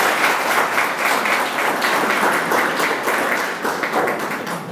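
Audience applauding, many hands clapping together, fading near the end.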